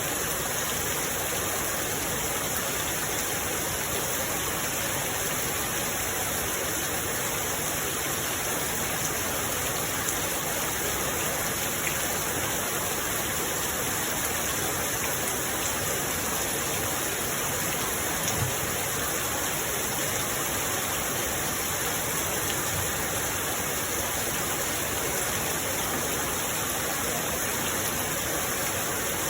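Steady, even rain falling, with an occasional faint tick of a drop, the loudest a little past halfway.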